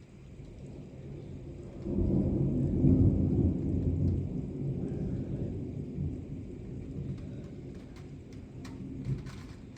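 Thunder rumbling: a deep rumble that swells sharply about two seconds in, is loudest around three seconds, then slowly dies away.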